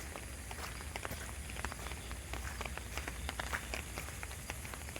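Light rain: scattered raindrops tapping irregularly, several a second, over a faint hiss and a steady low rumble.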